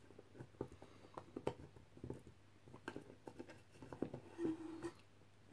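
Faint, scattered clicks and taps of a small camera board being handled and lined up inside a plastic tube housing, with a short faint steady tone about four and a half seconds in.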